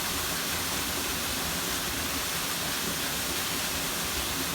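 Steady, unbroken rush of falling water from a stream waterfall.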